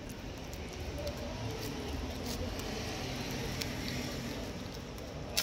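A cat eating wet pâté food from a foil tray: soft, scattered chewing and licking clicks over steady background noise.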